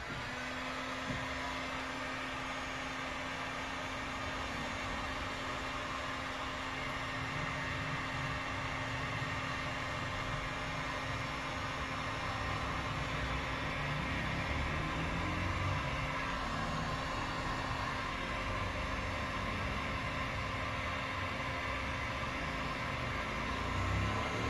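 Ranger electric heat gun switched on and running steadily, its fan blowing with a constant hum.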